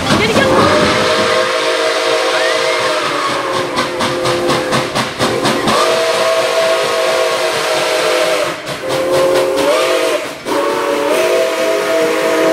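Steam whistle of Nickel Plate Road 765, a 2-8-4 Berkshire steam locomotive, blowing a chord of several tones: one long blast whose pitch sinks and then jumps back up, then a short blast and a third blast starting near the end. Steam hisses underneath, with a quick run of knocks from the moving train midway.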